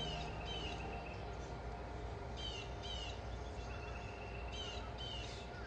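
A bird calling: pairs of short falling chirps, three times about two seconds apart, over a steady low rumble.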